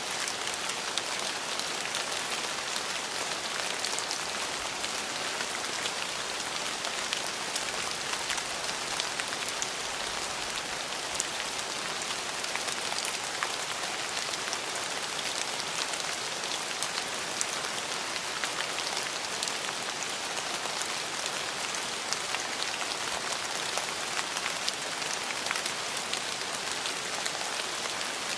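Steady rain falling: an even hiss full of small, dense drop ticks, unchanging throughout.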